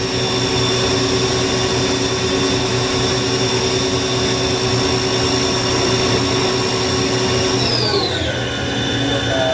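Haas VF9/40 CNC machining center spindle running at full speed, about 8,000 RPM, with a steady high whine over a mechanical hum. About eight seconds in the whine falls in pitch and settles lower as the spindle slows toward 4,000 RPM.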